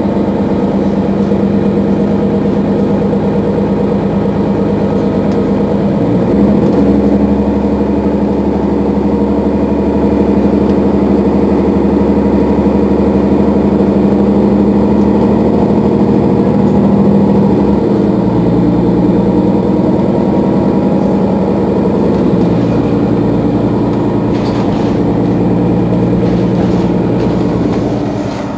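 Mercedes-Benz Citaro facelift city bus engine idling at a stop, a steady hum whose pitch shifts a few times, about 6, 18 and 22 seconds in.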